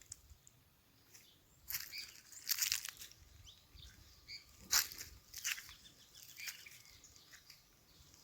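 Footsteps crunching on dry ground, half a dozen irregular steps, with faint short bird chirps between them.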